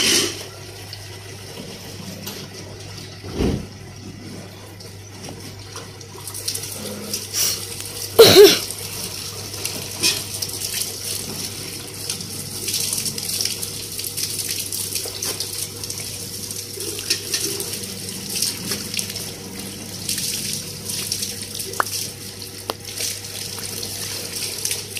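Water running from a wall tap onto wet clothes as they are handled and sloshed under it, the splashing getting louder from about six seconds in. A few knocks, the loudest about eight seconds in, over a steady low hum.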